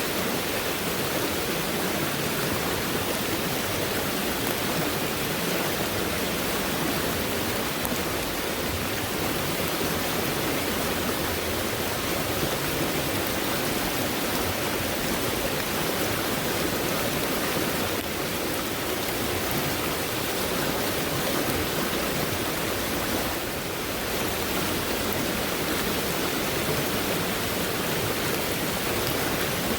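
Fast-moving stream running high after heavy rainfall, its water rushing steadily and evenly, with a slight dip in level for a moment about two-thirds of the way through.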